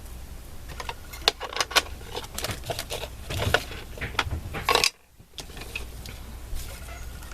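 Quick clicks, taps and light rattles of small craft supplies being handled and set down on a tabletop, busiest in the first five seconds, then a brief drop to silence and quieter handling.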